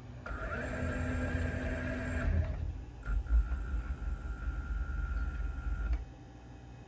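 Automatic sliding door's drive motor running with a steady whine twice: a run of about two seconds, then after a short pause a longer run of about three seconds, as the door opens and then closes.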